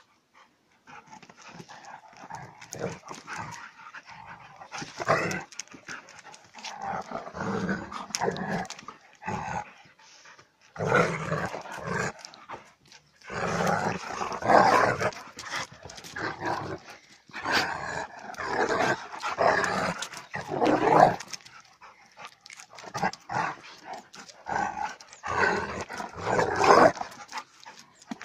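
A German Shepherd and a tan dog play-fighting, making dog vocal noises in irregular bouts a second or two long, with short pauses between them.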